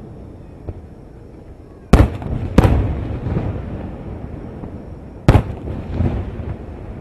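Aerial firework shells bursting: three sharp booms, two close together about two seconds in and one more about five seconds in, each trailing off in a rolling echo.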